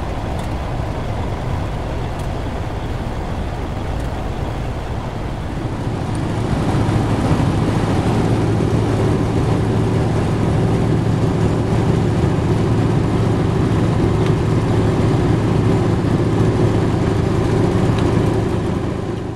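A road train's trailers and tyres rolling past with a low rumble. About six seconds in this gives way to a louder, steady drone of engine and tyres inside a vehicle driving on a dirt road, with a low hum, fading out at the end.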